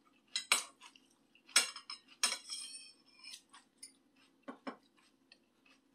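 Eating utensils clinking and scraping against a dish: a few sharp clinks, the loudest about a second and a half and two seconds in, the last ringing briefly, then a couple of lighter taps near the end. A faint steady hum lies underneath.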